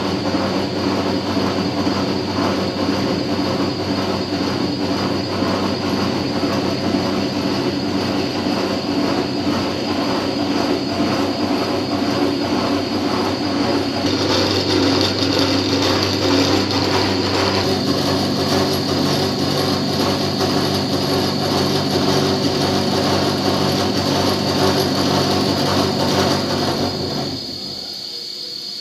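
Automatic tea-roller milling machine running: a steady motor hum and high whine under a rapid metallic chatter. The whine grows louder about halfway through, and near the end the chatter stops and the sound drops to a quieter steady whine.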